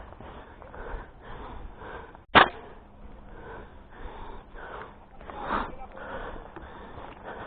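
A single sharp shot from a Tokyo Marui MWS gas blowback airsoft rifle about two seconds in, over low background noise, with a softer thump a few seconds later.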